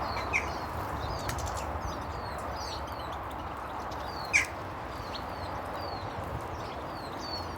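Small garden birds chirping: many short, high, downward-sliding chirps, with one louder call about four seconds in, over a steady low background rumble.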